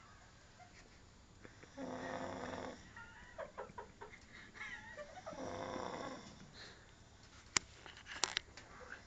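Snoring: two long snores about four seconds apart, each lasting about a second, with faint squeaks between them. A few sharp clicks near the end.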